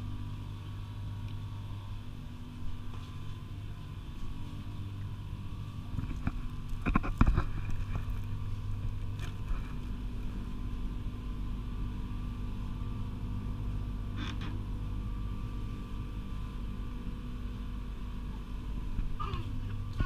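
Steady low hum of a convenience store's refrigerated drinks cabinets, with a short clatter of knocks and rattles about seven seconds in and a lighter click about fourteen seconds in.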